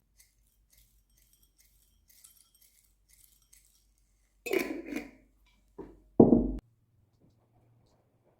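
Tableware being handled: a run of light clinks with a faint ringing, then a louder clatter about four and a half seconds in and two short, heavier knocks near six seconds.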